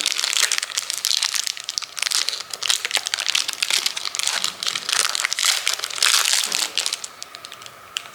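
Plastic protein bar wrapper crinkling as it is opened and handled: dense crackly rustling that eases off about seven seconds in.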